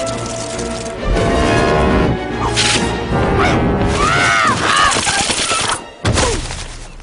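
Dramatic background music, with seagull squawks over it: a string of harsh, arching cries about four to six seconds in.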